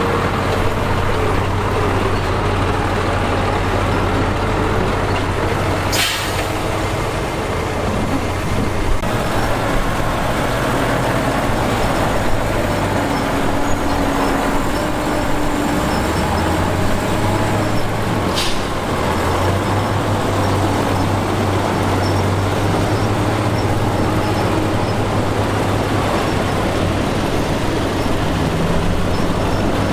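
Heavy diesel construction machinery running steadily, its engine note shifting a little, with two brief sharp sounds, one about six seconds in and one about eighteen seconds in.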